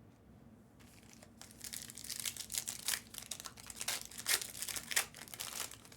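Crinkling and tearing of a foil trading-card pack wrapper being handled and opened, a dense run of irregular crackles starting about a second in.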